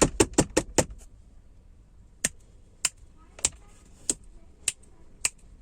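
Sharp clicks, likely small sounds made to set off the sound-activated LED lights' colour changes: a fast run of about five in the first second, then single clicks at a steady pace, one about every 0.6 s.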